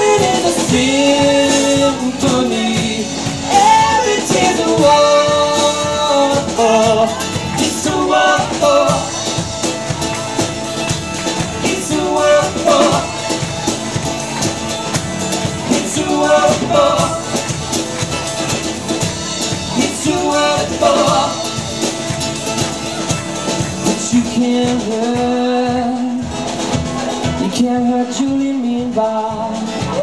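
Live band playing a rock song: strummed acoustic guitar and drum kit under a man singing a held, drawn-out melody line.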